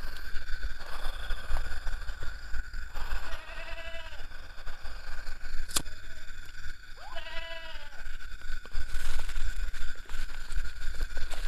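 Goat bleating twice, a few seconds apart, each a short wavering call. A sharp click falls between the two bleats, over a steady high-pitched background drone.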